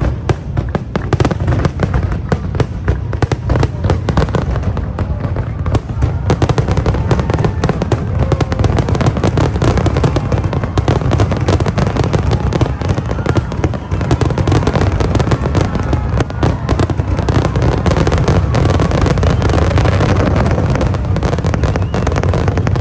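Fireworks going off in a dense, continuous barrage of rapid bangs and crackles with no pause.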